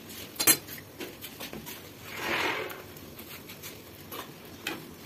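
Metal tongs clinking against a frying pan as slices of bread are turned while frying: a sharp clink about half a second in, a few lighter taps, and a brief hiss about two seconds in.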